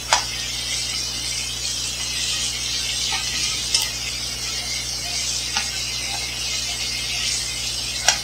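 Caramelized onions sizzling in a frying pan with a little meat broth, their colour cooking out into a brown sauce, while a wooden spoon stirs them. There are a few sharp taps of the spoon against the pan, the strongest just after the start and near the end.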